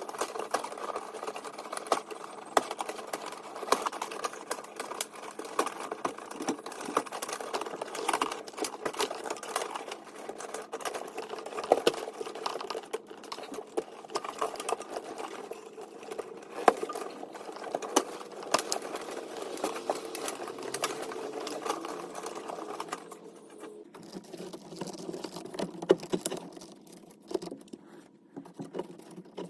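Sped-up workshop noise from time-lapse footage: a dense run of rapid clicks and rattles over a steady hum. The hum drops lower in pitch about 23 seconds in.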